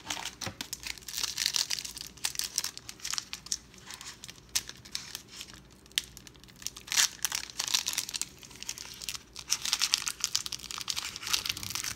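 Foil wrapper of a 1992 Pro Set football card pack being torn open and crinkled by hand, crackling in irregular fits and starts.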